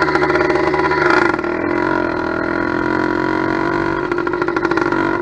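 Small two-stroke motorized-bicycle kit engine (about 90 cc, steel-sleeved cylinder) running on its first start while it is being tuned. It picks up briefly about a second in, settles to a slower, steady idle, and speeds up again near the end.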